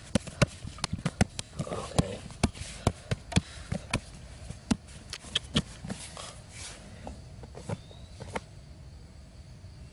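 A run of sharp, irregular knocks and clicks, about two a second, which stops about eight and a half seconds in.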